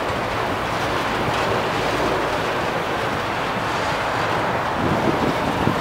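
Empty autorack freight cars rolling slowly past on the rails, a steady wheel-on-rail noise, with wind on the microphone.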